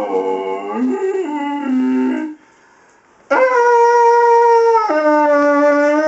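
A man blows a buzzing, horn-like drone through a cardboard paper towel tube. The pitch wavers, breaks off for about a second in the middle, then comes back on a higher held note that drops lower near the end.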